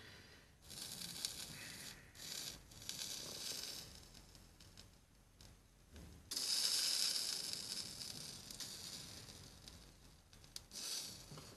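Solder wire melting against a hot soldering iron tip, sizzling in short hissing spells; the strongest starts sharply about six seconds in and fades over a few seconds.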